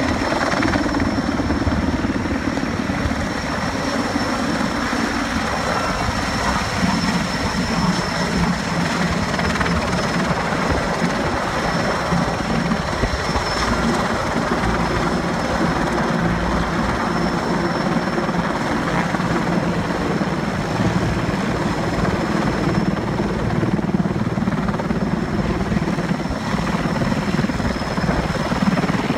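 Sikorsky S-64 Skycrane (Erickson Air-Crane) heavy-lift helicopter flying low and passing overhead. Steady, loud rotor and engine noise with a constant high whine.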